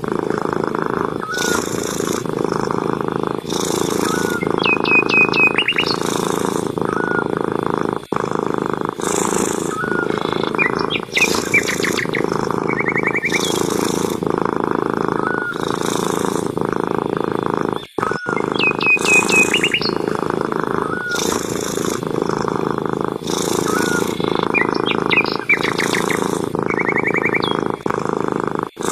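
A cat purring loudly and steadily, swelling and easing with each breath about every two seconds. Birds chirp and trill now and then in the background.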